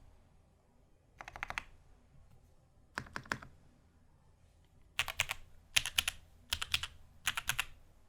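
Typing on a Mode Eighty tenkeyless mechanical keyboard with lubed Gateron linear switches (Ink alphas, Milky Black modifiers), PBT keycaps and an aluminum plate. Short runs of rapid keystrokes come with pauses between them, with four runs close together in the second half.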